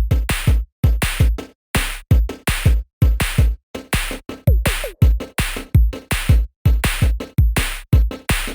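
Electronic background music with a fast, steady drum-machine beat and heavy bass hits.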